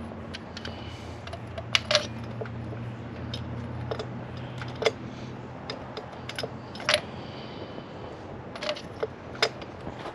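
Metal hand tools clinking and tapping irregularly, with a handful of sharp clinks, while spark plugs are being fitted by hand. A steady low hum runs underneath.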